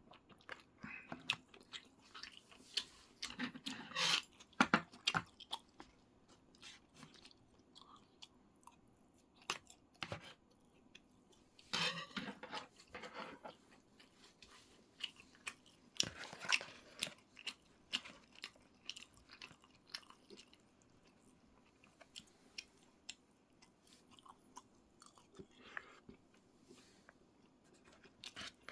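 A person chewing and biting food close to the microphone during a mukbang: a long run of short crunchy clicks and bites. The louder bunches come about four, twelve and sixteen seconds in.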